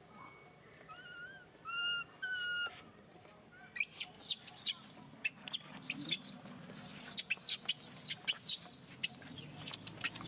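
Monkey vocalizing: a few short, wavering calls about a second in, then from about four seconds a rapid run of shrill squeals and chirps, the kind a frightened young monkey makes.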